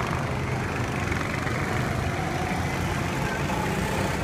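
Two go-kart engines running on track, a faint engine whine shifting in pitch over a steady wash of noise.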